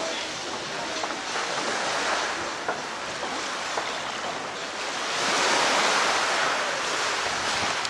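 Sea waves washing in, an even rushing that swells louder for a wave about five seconds in, then eases.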